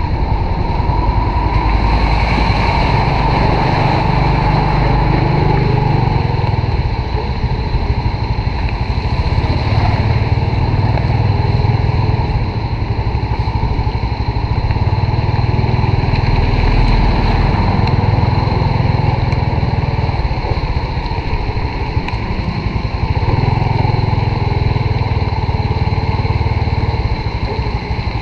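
Honda RSX 110 underbone motorcycle's small single-cylinder four-stroke engine running under way, its pitch rising and falling gently with the throttle, over a steady rush of wind and road noise.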